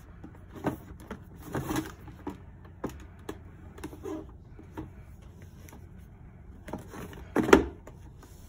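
Cardboard product boxes handled and turned over on a cloth-covered surface: scattered light taps, scrapes and rustles, with a louder knock about seven and a half seconds in.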